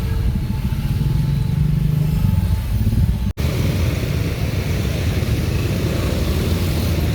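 Steady motor-vehicle running noise, low rumble with a hum, cut off abruptly just after three seconds in and replaced by a similar steady road noise.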